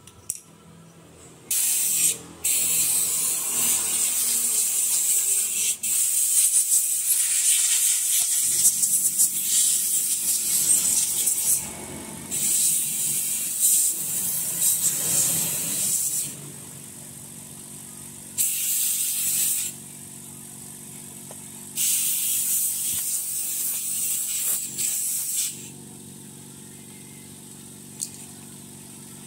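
Blasts of air hissing as dust is blown out of the inside of an opened laptop: one long blast of about ten seconds, then three shorter ones of a few seconds each. The blasts stop a few seconds before the end.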